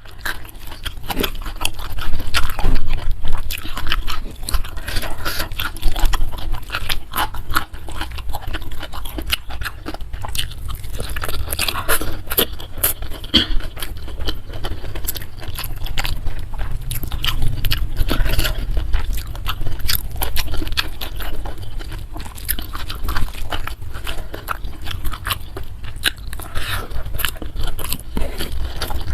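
Close-miked chewing and crunching of food, with dense, irregular wet mouth clicks and crackles throughout.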